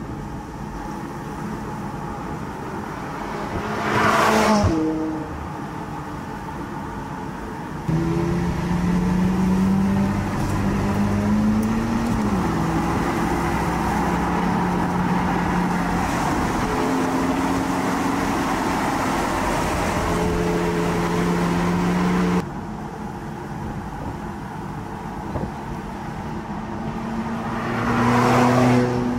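McLaren 675LT Spider's twin-turbo V8 passing close by about four seconds in and again near the end, its pitch dropping as it goes past. In between, a stretch of steady engine note at speed that briefly rises and then steps down in pitch, starting and stopping abruptly.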